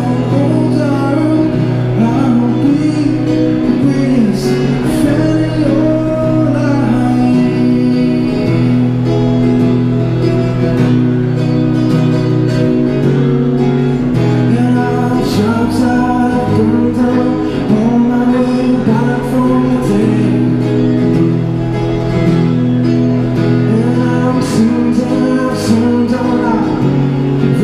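A man singing live to his own acoustic guitar, a Yamaha, both amplified through a small Roland Cube Street EX busking amp.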